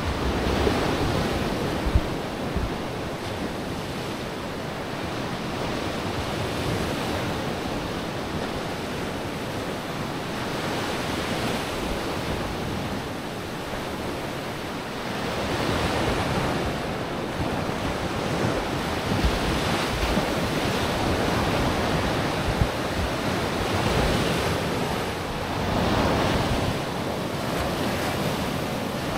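Sea waves breaking and washing up on a sandy beach, swelling and easing several times, with wind rumbling on the microphone.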